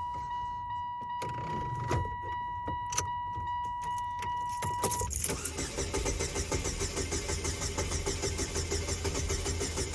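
A steady high electronic warning tone with a few clicks, cut off about halfway through as the 2001 Saturn L-series' starter cranks the engine in an even, pulsing rhythm of about four beats a second without it catching: a no-start.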